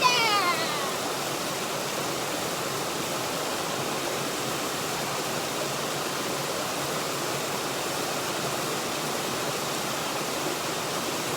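Waterfall rushing in a steady, even roar of falling water. A short call that falls in pitch opens it in the first second.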